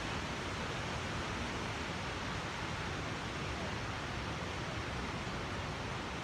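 Niagara Falls: a steady, dense rush of water plunging onto the rocks and river below, an even, unbroken noise.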